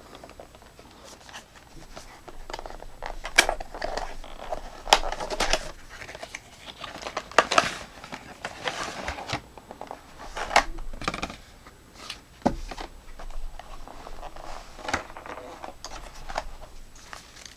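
A cardboard product box being opened and its packaging handled: irregular rustling, crinkling and scraping with scattered sharp clicks and knocks.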